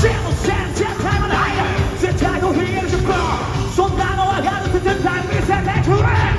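Live Japanese rock band playing in a concert hall, with a male voice singing and shouting over loud guitars and drums.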